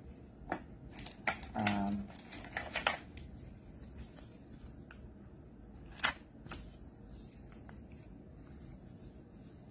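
Plastic scraper card drawn across a metal nail-stamping plate to scrape off excess polish: a few short scrapes and clicks in the first three seconds, with a brief pitched tone among them, then a single sharp tap about six seconds in.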